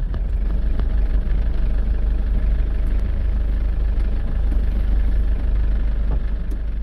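Vehicle under way: a steady, loud low rumble of engine and road noise.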